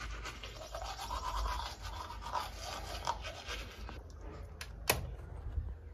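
Teeth being brushed with a toothbrush, a rapid scratchy scrubbing that eases off about four seconds in. A single sharp click comes near the end.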